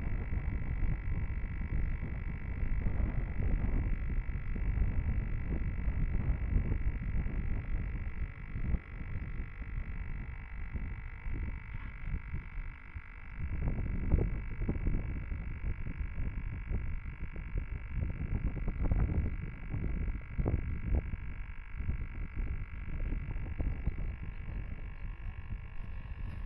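Wind buffeting an action camera's microphone, a gusty low rumble that rises and falls, with a steady high-pitched electronic whine underneath.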